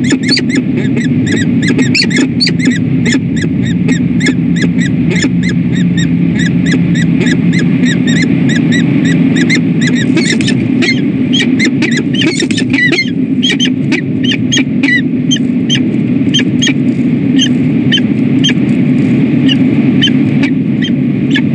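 A pair of peregrine falcons calling to each other during a courtship bonding display at the nest scrape: a fast run of short, squeaky calls that slows to spaced single calls in the second half, over a steady low hum.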